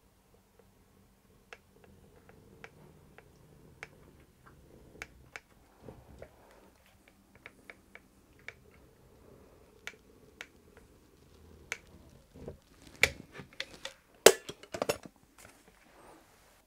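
Caulking gun clicking and tapping irregularly as caulk is run along the joint between an MDF batten and the wall, with a burst of louder clicks near the end.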